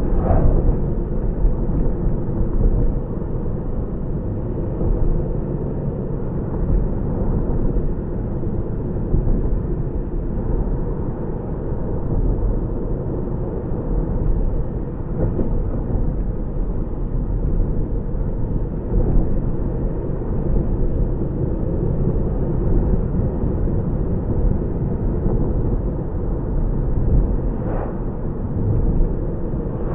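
Mercedes W210 AMG's 5.0 V8 running at a steady cruise, heard from inside the cabin with low tyre and road rumble. A car passes in the opposite direction at the very start.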